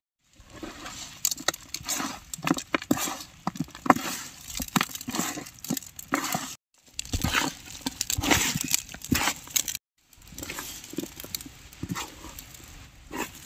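Hands kneading raw chicken pieces into masala powder: irregular wet squelches and clicks as the spiced meat is squeezed and turned against the plate, broken by two short silences.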